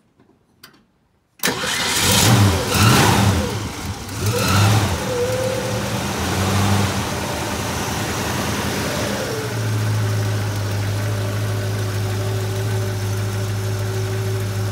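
A Ford 289 V8 starting about a second and a half in, revving up and down a few times, then settling into a steady idle. It runs on all eight cylinders with no surge, its misfire cured by taping over a cracked spark plug wire boot that had been letting the spark jump to the exhaust manifold.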